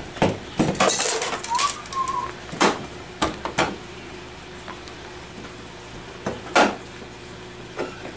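Sheet-metal TV stand support brackets clinking and knocking as they are handled and set down on the steel back of an LCD panel: a run of sharp clinks in the first few seconds, then one more later.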